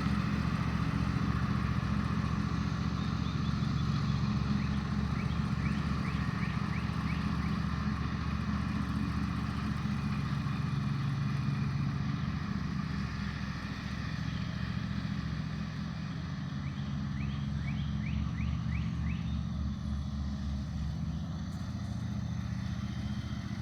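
Riding lawnmower engine running steadily as the mower is driven over grass, a little quieter from about halfway through.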